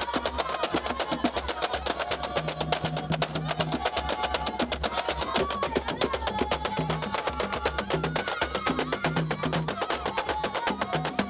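Fast, steady drumming with voices singing a wavering melody over it: music for the Bapea, a night-time forest dance of the Bakola.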